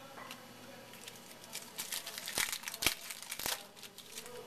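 Crinkling of a trading-card pack wrapper being handled: a flurry of crackles with a few sharp snaps, lasting about two seconds in the middle.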